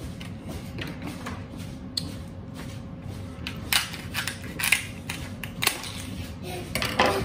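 Scissors cutting open a plastic blister pack, with crinkling and clicking of the stiff plastic and several sharp snips in the second half, the loudest near the end.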